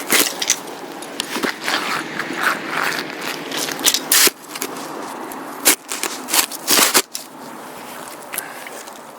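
Crackling, scraping and knocking right at the microphone as the camera is handled and set up by hand, irregular and loud for about seven seconds, then quieter.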